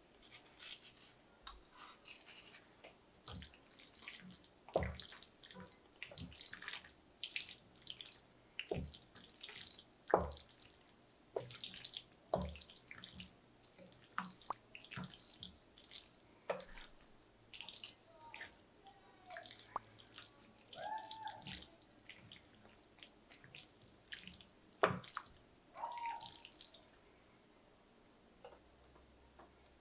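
A wooden spoon stirring thick, creamy shell-pasta mac and cheese in a ceramic baking dish: irregular wet, sticky stirring noises and light knocks against the dish. It goes quiet near the end.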